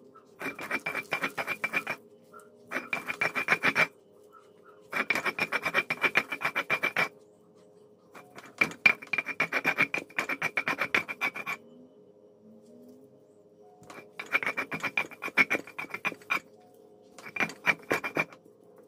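Stone roller (mano) scraping back and forth on a volcanic-stone metate, grinding boiled plantains into dough. The strokes come in about six quick rasping runs, with short pauses between them.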